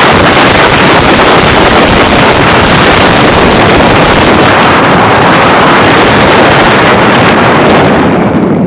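Heavy wind buffeting the microphone of a moving motorbike, a loud, even roar with no clear engine note. The high hiss fades out near the end.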